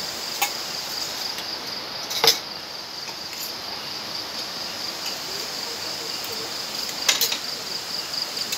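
Steady, high-pitched insect chirring runs unbroken throughout. A few sharp clicks or knocks cut in, the loudest about two seconds in and a couple more near the end.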